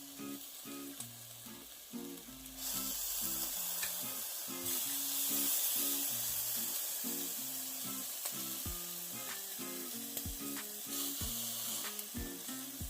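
Pork barbecue sizzling as it cooks, the sizzle swelling about two and a half seconds in and easing near the end. Soft background music plays underneath.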